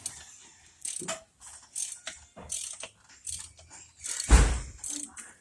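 Ratchet wrench being worked in short strokes, roughly one every half second to second, during engine work on a 1971 Chevy C10's cylinder head. A heavier thump about four seconds in is the loudest sound.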